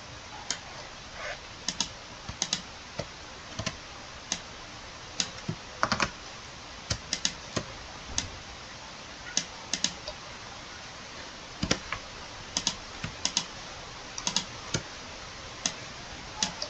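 Scattered clicks of a computer keyboard and mouse, irregularly spaced and sometimes in quick pairs or triples, as shortcuts are pressed and the interface is clicked, over a faint steady hiss.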